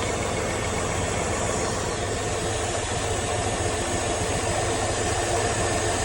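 1996 Camaro SS LT1 V8 idling steadily. Its number 6 fuel injector wire is severed, the fault behind its misfire codes P0200 and P0300.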